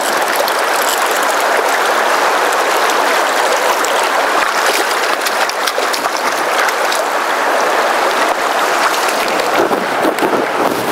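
River water rushing over a shallow, broken riffle: a steady rush of flowing water.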